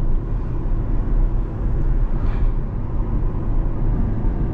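Chevrolet C8 Corvette cruising steadily, heard from inside the closed cabin: a continuous low engine drone mixed with tyre and road rumble.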